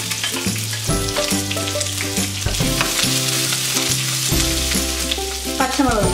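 Sliced onions sizzling in hot ghee, stirred with a wooden spatula, over light background music.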